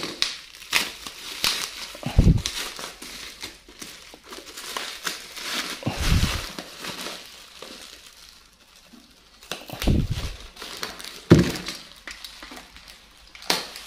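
Black plastic courier mailer bag crinkling and tearing as it is ripped open and a cardboard box is pulled out of it, in irregular bursts. A few dull thumps come in between.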